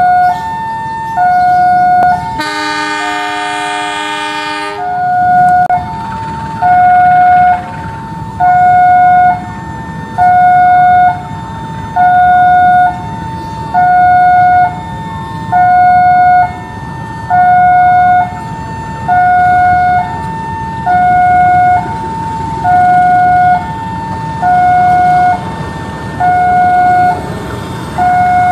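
Level crossing warning alarm sounding a continuous two-tone hi-lo pattern, about one cycle every two seconds. About two and a half seconds in, a CC201 diesel locomotive blows its horn for about two seconds as the train prepares to pull out. After that a low diesel engine rumble runs under the alarm.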